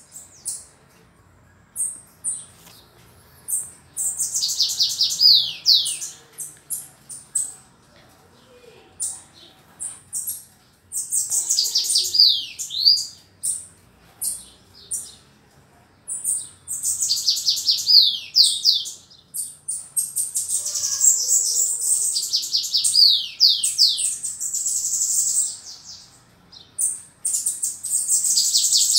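Caged bananaquit (sibite) singing: bouts of high, thin, rapid notes, each phrase running into quick descending slurs, with short pauses between bouts and the longest bout from about the middle to near the end.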